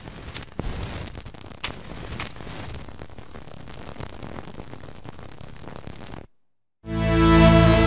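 Sampled sound effect of matches: a few sharp scratchy strikes in the first couple of seconds over a steady crackling hiss, which cuts off about six seconds in. After a short gap a loud electronic pitched sound starts near the end.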